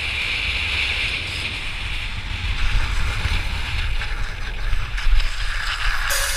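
Wind rushing over a camera microphone, with a steady low rumble underneath and a hiss that fades after the first couple of seconds.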